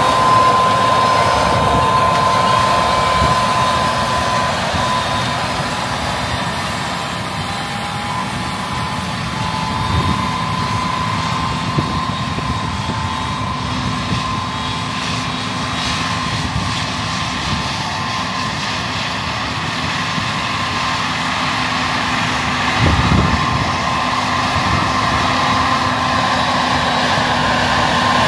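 Versatile DT620 track tractor running steadily under load while pulling a 32-row White 9900 corn planter through the field, with a steady high whine over the engine noise.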